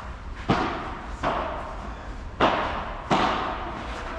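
Padel rally: four sharp knocks of the ball off solid padel rackets and the court, unevenly spaced, each trailing off in a short echo.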